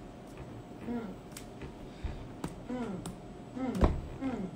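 A faint, quiet voice speaking in short phrases, with a few sharp clicks or taps, the loudest just before the end.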